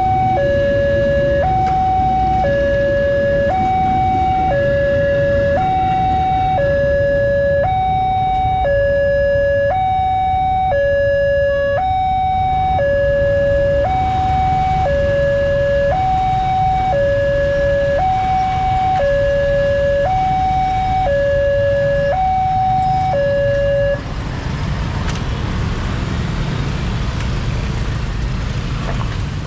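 A railway level-crossing warning alarm sounds a two-tone signal, switching back and forth between a low and a high tone held just under a second each. It sounds while the crossing's red lights flash and the barrier arm rises, and it cuts off about 24 seconds in. Road traffic noise from motorbikes and cars starting across the tracks follows.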